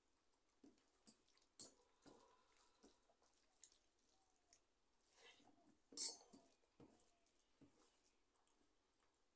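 Faint sounds of eating rice by hand from a steel plate: fingers squishing and mixing rice against the metal, with small scattered clicks and one sharper clink about six seconds in.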